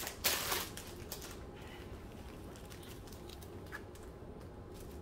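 Small plastic zip bags of diamond-painting drills rustling and clicking as they are picked up and set down on a fabric sheet, with a louder crinkle a fraction of a second in and faint scattered clicks after.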